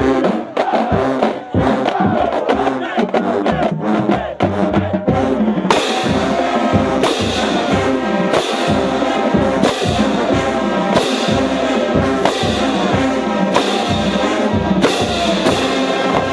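College marching band playing: brass over a steady, strong drum beat, the sound growing fuller and brighter about six seconds in.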